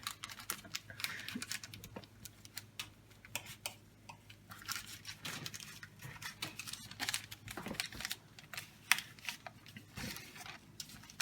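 Irregular rustling, crinkling and small taps of hands handling food and wrapping during kitchen preparation.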